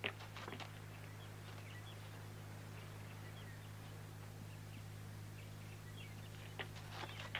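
Faint, scattered bird chirps over a steady low hum, with a sharp click at the very start and a few soft knocks near the end.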